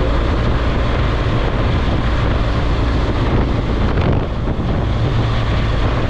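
BMW R1200GS boxer-twin engine running steadily at highway cruising speed, a constant low drone under heavy wind noise buffeting the microphone.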